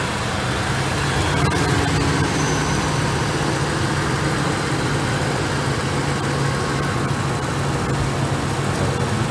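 1999 Lincoln Navigator's 5.4-litre V8 idling steadily, freshly run after an engine flush on new full-synthetic oil.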